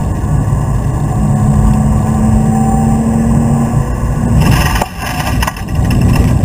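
BMW Z3 Coupe's straight-six engine pulling hard, heard from inside the cabin with tyre and road noise. About four and a half seconds in, the engine note briefly drops away and a harsh, rapidly repeating clatter runs for about two seconds: the tyres running over the track's edge as the car runs out of road close to the guardrail.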